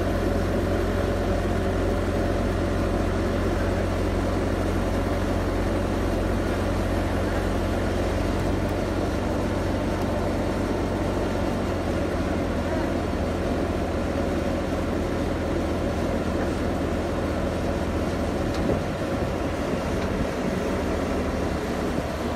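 Diesel engine of a compact track loader running steadily under load, driving the hydraulics of a tree spade that lifts a grass tree with its root ball. The lowest part of the drone shifts slightly about halfway.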